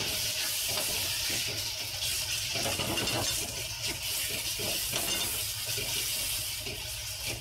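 Onion-tomato masala sizzling in a kadhai while a spatula stirs through it, with a steady frying hiss and irregular scrapes of the spatula against the pan.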